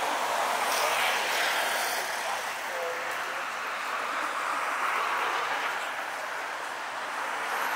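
City road traffic: cars driving past one after another, their tyre and engine noise swelling and fading as each goes by.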